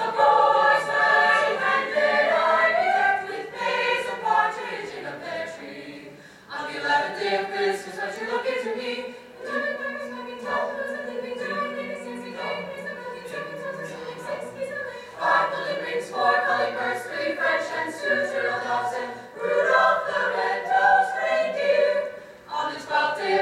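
Mixed-voice vocal ensemble singing a cappella in close harmony, in several phrases with short breaks between them, a low bass note held under the voices through the middle.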